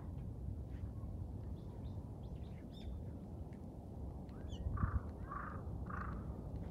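A crow cawing in a quick series, about two caws a second, starting about five seconds in. Fainter small-bird chirps come before it, over a steady low outdoor rumble.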